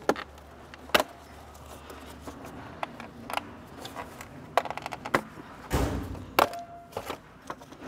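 Engine beauty cover on a Mercedes-AMG M156 V8 being worked loose from its mounts by hand: a series of sharp clicks and knocks, with a quick run of clicks near the middle and a louder scrape about two thirds of the way through.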